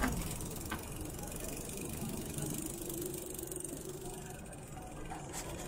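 Outdoor city ambience: a steady low rumble, with a faint even drone through the middle and a few light clicks.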